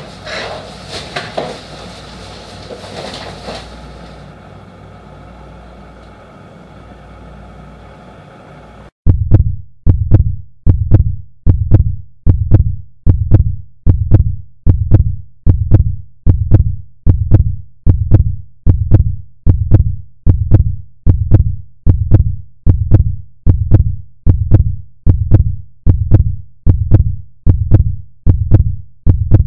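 A few seconds of clicks and handling noise, then a sudden cut at about nine seconds to a heartbeat sound effect. The heartbeat is steady, deep thumps, a little faster than one a second.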